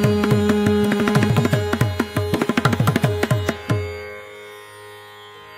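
Carnatic concert percussion, with a kanjira frame drum among the drums, plays a fast closing run of strokes whose bass notes slide down in pitch, over a steady drone. The drumming stops about four seconds in, leaving the drone sounding softly as the song ends.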